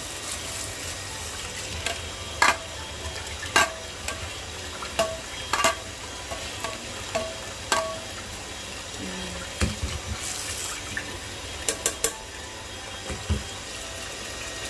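A metal mesh strainer knocked against the rim of a rice cooker's inner pot, about eight sharp knocks at irregular intervals, each ringing briefly, with a quick run of three near the end.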